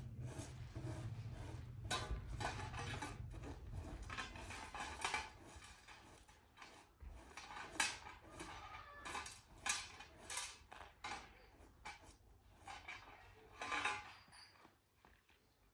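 Dishes and pots clinking and knocking together: a string of short, irregular clatters, over a low hum in the first few seconds.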